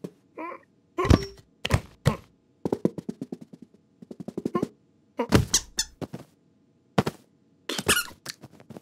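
Cartoon sound effects of a cat rummaging inside a suitcase: a string of knocks and thumps, two spells of rapid clicking rattles, and short squeaks.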